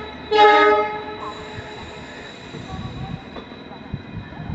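Train locomotive horn gives a short, loud, steady blast just after the start. The train's running rumble follows, with scattered wheel-on-rail clicks.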